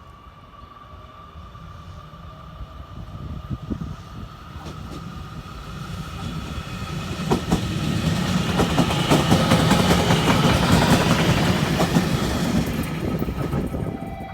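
JR Kyushu 813 series electric train coming into the station, growing steadily louder as it nears and running loudest for the last several seconds, with the wheels clacking over rail joints and a high whine. The sound cuts off suddenly near the end.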